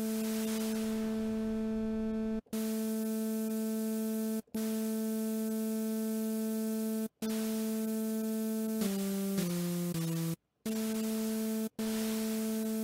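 Arturia Pigments software synth's analog engine playing a held note with a layer of hiss from its noise source, the noise colour being swept between red, white and blue by an LFO. The note is retriggered every couple of seconds with short breaks, and about nine seconds in a few notes step downward.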